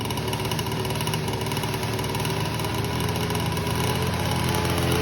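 Small engine running steadily on a homemade key cut from a square bolt. It keeps running because the kill switch has stopped working.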